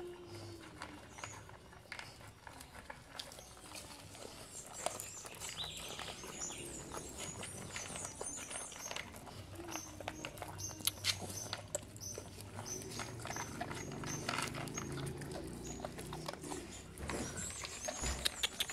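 Pit bull puppies eating dry kibble, with irregular crunching, licking and clicks of teeth and tongue against an aluminium bowl.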